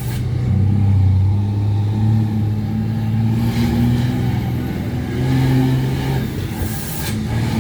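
Ford Cargo 2428 truck's diesel engine running under load, its pitch stepping up and down several times as the revs change. Two brief hisses cut in, about three and a half seconds in and near the end.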